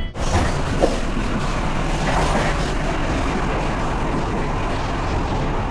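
Running noise inside a moving passenger train: a steady rumble and hiss of the wheels on the rails, with one short knock about a second in.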